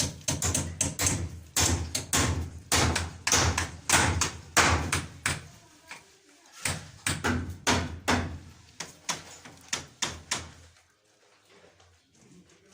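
Rapid, irregular knocking and banging, several hard knocks a second, over a steady low hum; the knocks and the hum stop about eleven seconds in.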